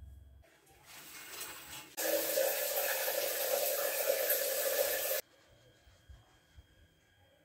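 Square rain shower head running, water pouring down in a steady hiss. It comes in softer, grows much louder about two seconds in, and cuts off suddenly a few seconds later.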